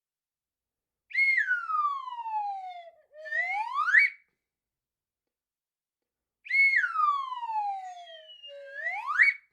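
Cartoon slide whistle effect: a whistle tone slides down over about two seconds, then quickly slides back up, played twice.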